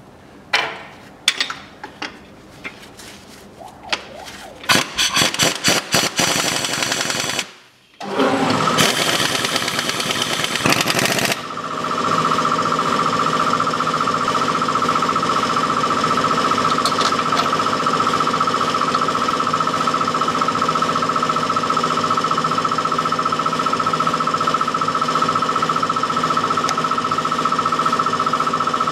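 Socket-tool work on the engine-mount bolts under the car: scattered metal clicks and knocks, then a rapid rattling run of clicks about five seconds in. From about twelve seconds a steady mechanical whine takes over and is the loudest sound.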